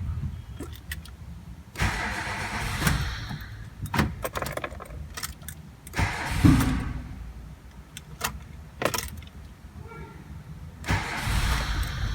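A Renault Logan's 1.6-litre eight-valve engine being started, in a start test after its MAP sensor ground fault was repaired. Louder bursts of engine noise come about two seconds in, about six seconds in, and again near the end, with a low rumble and a few clicks between them.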